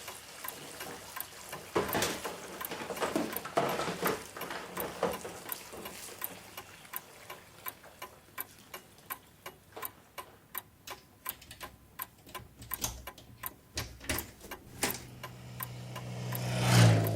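Clock ticking in a fast, steady rhythm, with some louder knocks and clatter early on, two low thumps later, and a low hum that swells to a peak near the end.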